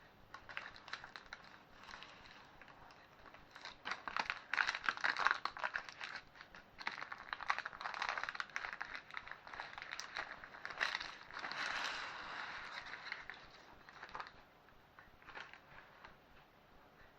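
Knife cutting through a freshly baked banana pancake traybake in its baking tin: irregular crackling, scratchy strokes with small clicks as the blade scrapes the tin. The strokes come and go and die away about fourteen seconds in.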